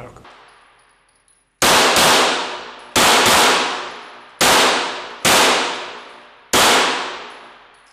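Walther Q5 Match 9 mm Luger pistol fired seven times: two quick pairs, then three single shots, each ringing out in a long echo off the indoor range's walls.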